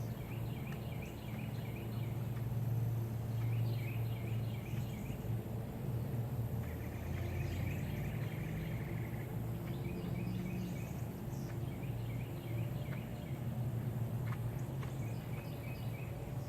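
Small birds chirping in short repeated phrases, with one longer trill about halfway through, over a steady low rumble.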